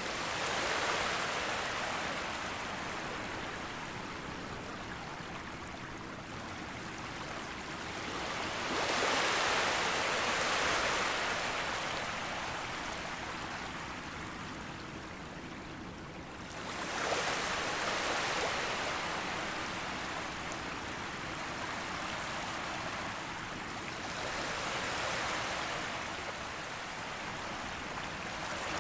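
Moderate sea waves breaking on a beach: a steady wash of surf that swells as each wave crashes, about every eight seconds, four times.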